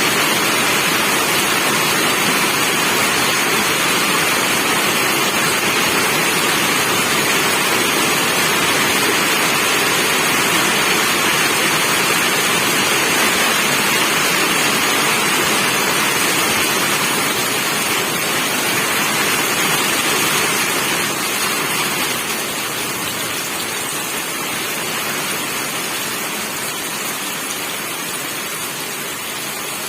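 Steady rain falling, a dense even hiss with no distinct drops standing out; it eases slightly and grows a little quieter about two-thirds of the way through.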